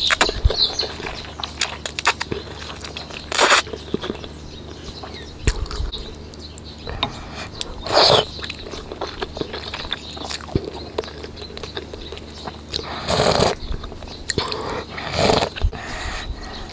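Close-miked eating sounds: chewing with many small clicks and smacks, and four louder, longer noisy bursts spread through.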